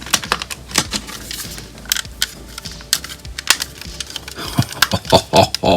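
Small plastic model kit parts clicking and tapping as they are handled and pressed into place, a run of sharp irregular clicks that come closer together near the end.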